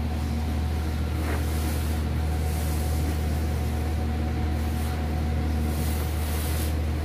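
Steady low mechanical hum of machinery running in the background.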